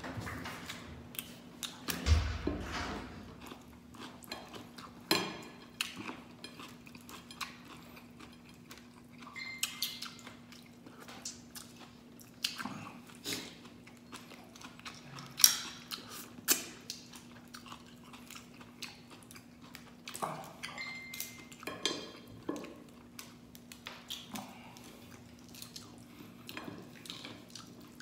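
Mud crab being eaten by hand: chewing and mouth sounds, with irregular sharp cracks and clicks as the crab shell is broken and picked apart. There is a low thump about two seconds in.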